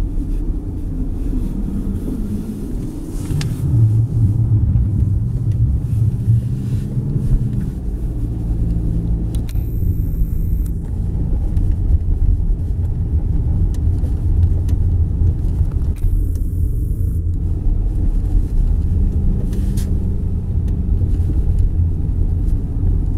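A car driving on snow-covered streets, heard from inside the cabin: a steady low rumble of engine and tyres, which grows louder about three and a half seconds in as the engine picks up.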